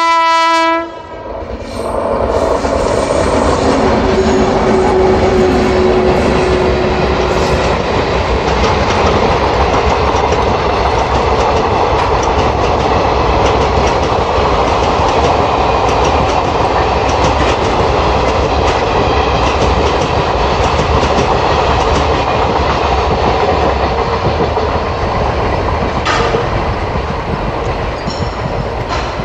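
Electric locomotive horn blowing for about a second and cut off short, then a train hauled by two coupled WAP-7 electric locomotives passing at speed: a steady rush of wheels on rails with the clickety-clack of the coaches.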